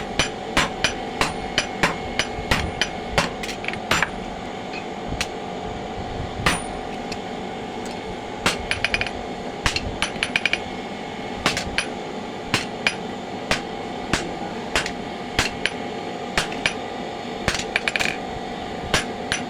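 Blacksmith's hammer striking metal on an anvil: a series of sharp, ringing blows at an uneven pace, with a few quick runs of rapid strikes. A steady hum runs underneath.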